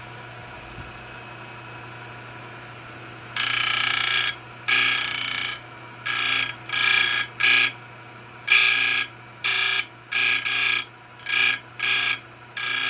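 A file working a chainsaw chain cutter to change it from round-ground to square-ground. About three seconds in it starts a run of about ten strokes, each lasting under a second and each with a high ringing squeal.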